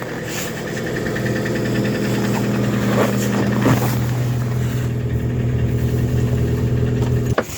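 Lada Granta engine idling steadily on a cold start at −11 °C. There is no whine from its automatic gearbox, which used to hum when cold: the problem has gone after a fluid and filter change. The sound cuts off suddenly near the end.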